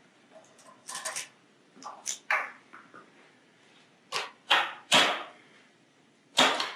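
Handling noises from dismantling the CNC machine: about half a dozen short scrapes and knocks as its parts are moved and pulled apart, with quiet gaps between.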